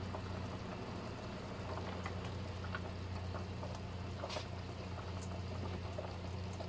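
Pot of beef and water boiling on a stove: faint bubbling with scattered small pops over a steady low hum.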